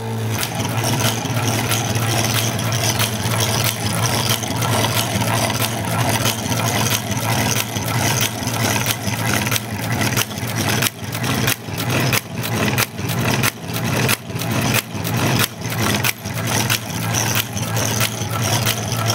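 Electric-fan motor switched on and running with a steady hum, driving a cam that lifts and drops a lever onto a typewriter key, which clacks over and over at an even rhythm of roughly two strikes a second.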